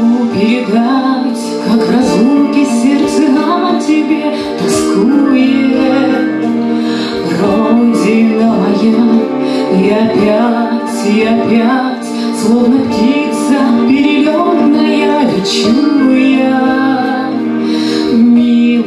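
Music: a female voice singing a song with instrumental accompaniment.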